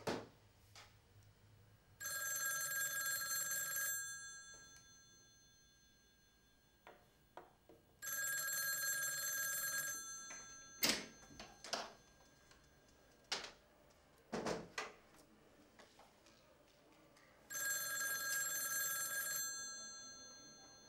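A telephone bell ringing three times, each ring about two seconds long and fading away after. A few sharp knocks fall between the rings, the loudest about halfway through.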